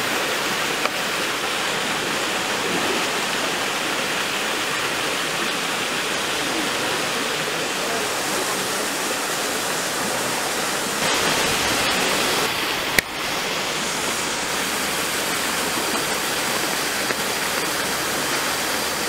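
Steady rushing of water, with a louder stretch about eleven seconds in and a single sharp click a couple of seconds later.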